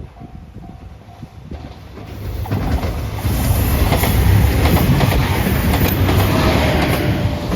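A level-crossing warning bell ringing in a quick repeating ding-ding, soon covered by a train approaching and passing close by at speed. From about two seconds in the wheels clatter loudly over the rail joints, staying loud to the end.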